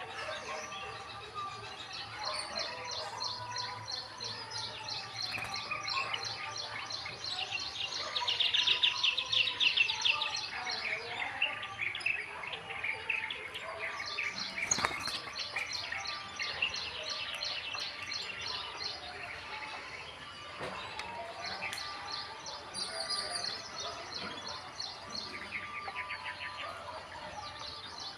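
House sparrows chirping in fast repeated series throughout, with a louder run of quick chirps about eight to ten seconds in.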